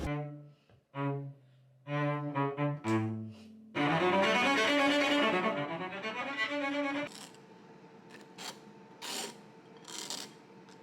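Cello bowed in a few separate low notes, then a denser passage of many notes that stops about seven seconds in. Faint rustles and a few light knocks follow.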